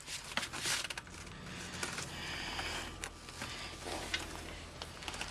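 Handling noises of a metal tire chain and its rubber chain tightener being pulled and moved along it: rustling with scattered light clinks.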